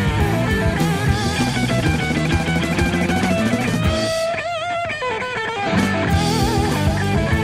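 Psychedelic rock music: electric guitar over bass and drum kit. About four seconds in the band drops away and the guitar holds a single note with wide vibrato. The full band comes back in about a second and a half later.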